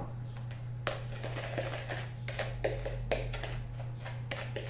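Irregular light clicks and taps of a spoon and container, adding cinnamon to sugar in a pan and mixing it, over a steady low electrical hum.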